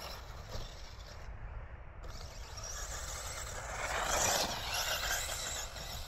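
Electric 1/8-scale RC buggy driving past close by on artificial turf. It swells to its loudest about four seconds in, then fades.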